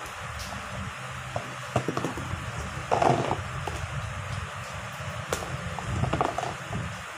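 Calamansi and mangoes being handled in a plastic tub: scattered knocks and rustles of fruit against the plastic, loudest about three seconds in as the handful of calamansi goes back into the tub, over a steady low hum.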